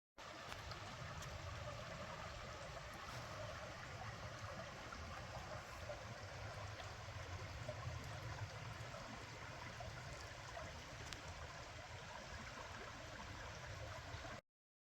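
Steady rush of flowing water, which cuts off suddenly near the end.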